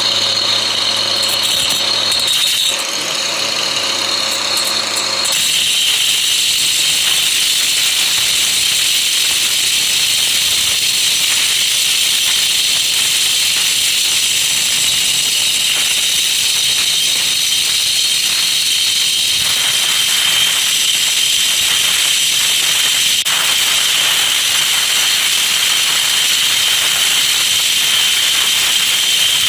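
A cheap electric grinder running continuously with a loud high whine and hiss. Its pitch drops a little about five seconds in and then holds steady.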